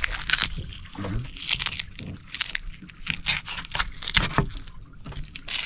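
Thick, tough skin being cut and peeled off a triggerfish by hand: a run of irregular crunching, scraping crackles.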